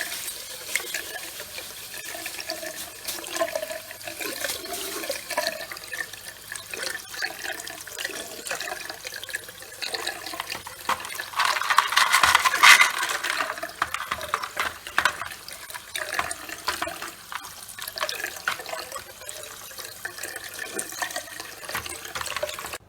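Tap water running and splashing through a canister filter's media tray as the dusty filter media is rinsed, with many small spatters. The flow surges louder for a second or two about halfway through.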